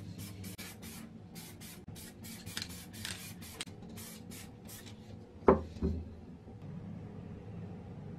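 Aerosol spray paint can spraying in short hissing bursts, several a second, onto metal parts. The spraying stops a little past the middle, followed by a sharp knock and a smaller one just after.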